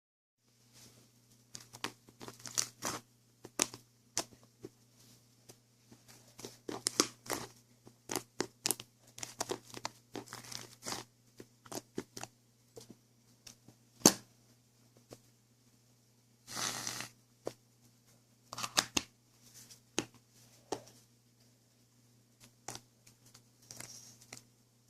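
Irregular crinkling and tearing, a run of sharp crackles and clicks with a longer rustle about two-thirds of the way in, over a steady low hum.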